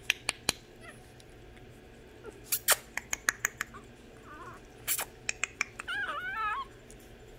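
Shih Tzu puppies whimpering: a short high whine about four seconds in and a longer wavering one about six seconds in, among scattered sharp clicks and taps at the wire crate.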